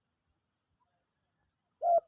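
Silence, then a dove begins a coo near the end with a single low, slightly arching note, the start of its cooing phrase.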